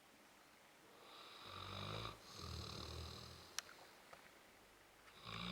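Weimaraner dog snoring in its sleep: a long, rumbling snore starts about a second in and breaks briefly in the middle, and another snore starts near the end. A short click sounds just after the first snore.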